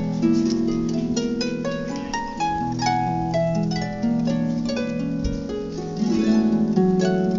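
Concert harp played freely, plucked notes ringing on and overlapping one another in an improvised noodle rather than a set piece.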